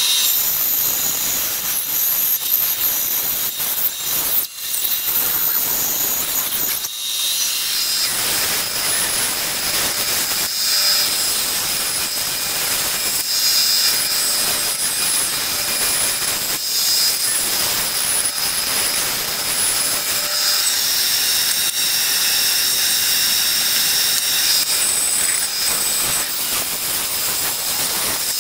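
Benchtop band saw running, its blade cutting a wooden axe-handle blank along a curved line: a steady high hiss with a faint whine. The sound dips briefly about four and seven seconds in.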